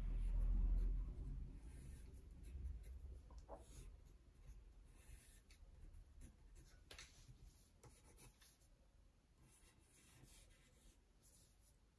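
Pencil sketching on a spiral-bound paper pad: soft, faint scratching strokes of graphite on paper. A low rumble is heard in the first second or two.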